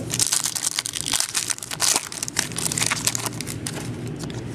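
Plastic packaging crinkling and crackling as it is handled and opened, in quick irregular crackles.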